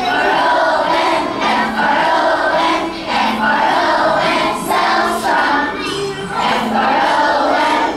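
A group of kindergarten children singing together, in phrases about a second long with short breaks between them.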